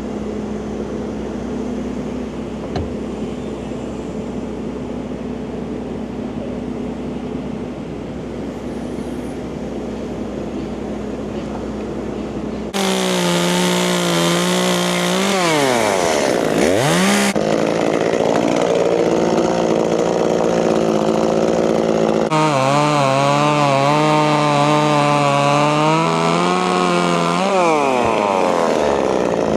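A steady low engine drone, then, about halfway through, a chainsaw suddenly running at full throttle cutting into oak. Its pitch sags sharply as the chain bogs down in the wood and wavers up and down as the cut goes on.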